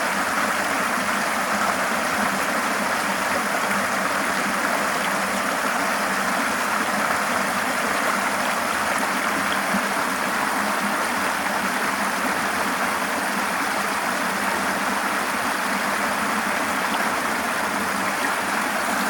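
River water flowing over rocks, a steady rushing and gurgling with no pauses.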